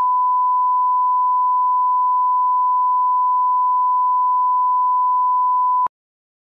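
Steady 1 kHz line-up test tone, the reference tone that goes with broadcast colour bars, held at one pitch and cutting off suddenly near the end.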